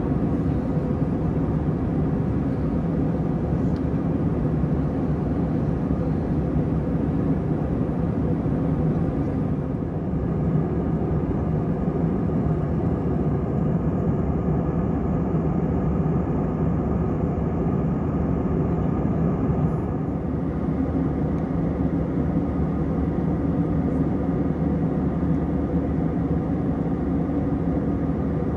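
Airbus A321 cabin in cruise: a steady drone of its IAE V2500 turbofans and the airflow over the fuselage, with several steady tones in the hum. The hiss dulls slightly for several seconds near the middle.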